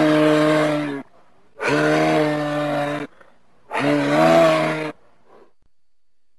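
Moose calling: three drawn-out calls, each about a second long on a steady low pitch, one roughly every two seconds; the third wavers a little in pitch.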